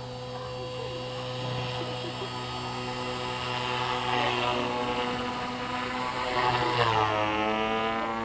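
Align T-REX 450 electric flybarless RC helicopter in flight: a steady whine of brushless motor and rotor blades. It grows louder, and near the end its pitch dips and then climbs as the helicopter manoeuvres.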